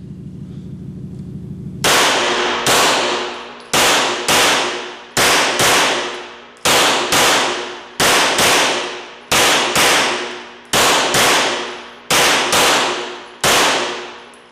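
Steyr L9-A2 MF 9 mm Luger pistol firing seventeen shots, mostly as quick double taps, emptying its 17-round magazine with subsonic 158-grain full-metal-jacket rounds. Each report echoes in an indoor range.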